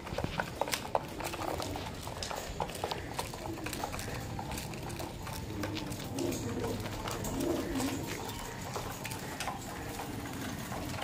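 Caged fancy pigeons cooing in low murmurs, loudest about two-thirds of the way through, with scattered light clicks and rustles of birds moving in their wire cages.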